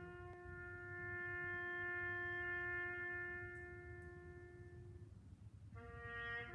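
A bugle playing a slow call: one long held note lasting about five seconds, then after a brief break a short note leading into another held note near the end.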